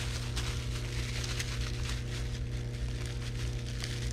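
Bubble wrap crinkling and crackling irregularly as it is handled and pulled off a packed part, over a steady low electrical hum.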